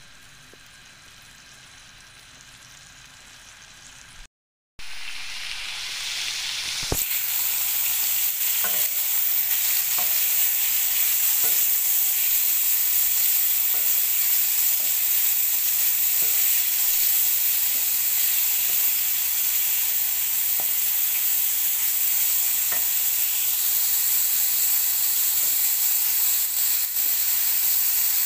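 Chopped onion sizzling softly in a pan; after a brief break a louder, steady sizzle of chopped peppers, tomatoes and onion frying. A wooden spoon stirring them knocks and scrapes on the pan every second or two.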